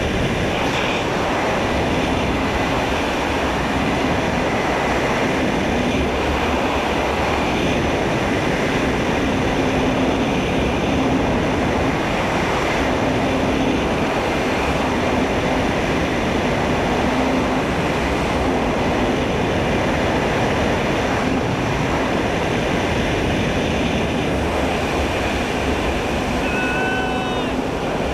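Zip-line trolley running fast along a steel cable, with wind rushing over a helmet-mounted camera: a loud, steady rolling rush with a low hum underneath. A brief high-pitched sound rises and falls near the end.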